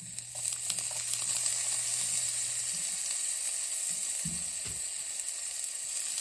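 Seasoned garlic sizzling in hot oil in a frying pan, a steady hissing sizzle that starts as the garlic goes in. Two soft knocks come about four seconds in.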